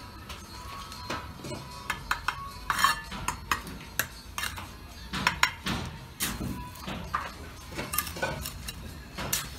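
Steel mason's trowel scraping and tapping mortar along the top of a pumice concrete block wall, with irregular sharp clinks and knocks as blocks and a clay brick piece are set.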